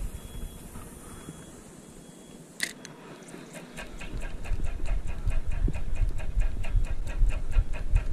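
Shimano spinning reel being cranked to retrieve line after a cast, giving an even ticking of about five clicks a second over a low handling rumble. The ticking starts a little over halfway through, after a single sharp click.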